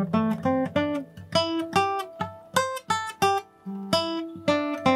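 Steel-string acoustic guitar played as a simple lead-guitar practice line: single notes picked one after another, about three to four a second, over low ringing notes.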